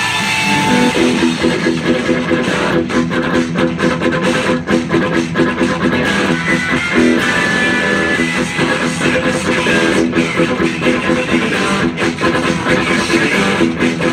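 Fender electric guitar played with fast, steady picking, a driving rock riff.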